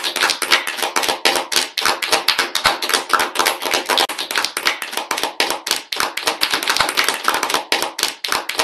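Applause: many people clapping their hands, heard as a dense, steady patter of claps over a video call.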